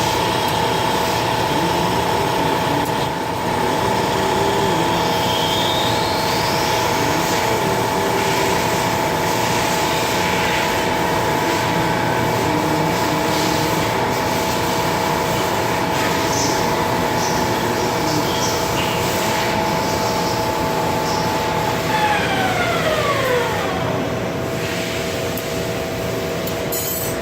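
Metal lathe running with a steady gear whine of several fixed tones. About 22 seconds in, the spindle winds down and the whine falls in pitch.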